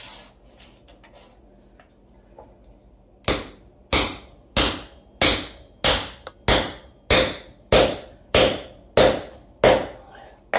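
Short-handled sledgehammer striking a steel anchor bolt to drive it into an adhesive-filled hole in a concrete floor: twelve sharp, evenly paced metal-on-metal blows, about one and a half a second, starting about three seconds in.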